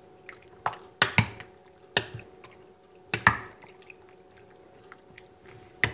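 Wet squelching of raw pork liver, kidney, pig ears and bacon being tossed by hand and spoon in a liquid marinade in a glass bowl, with a handful of sharp clicks and slaps spaced about a second apart.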